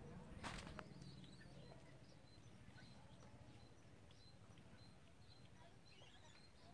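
Near silence: faint outdoor ambience with a faint high chirp repeating two or three times a second, and one brief noise about half a second in.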